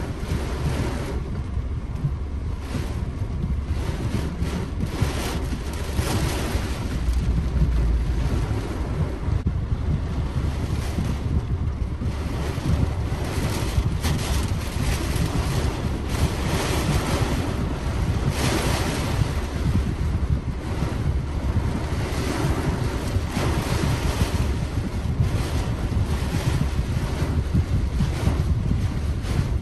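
Heavy, wind-driven thunderstorm rain pelting a car's windshield and roof, heard from inside the car, with gusting wind. It is a steady loud rush that surges and eases, with a heavy low rumble.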